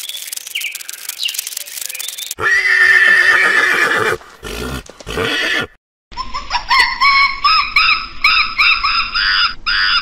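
Several different animal calls in quick succession. First a high hiss with a few chirps, then a loud call with several stacked pitches from about two and a half seconds in. In the second half comes a run of short, repeated calls that each rise and fall in pitch.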